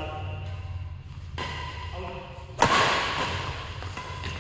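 Badminton rackets hitting a shuttlecock in a rally. A fainter hit comes about a second and a half in, then a loud, sharp smack just past the middle that rings on briefly.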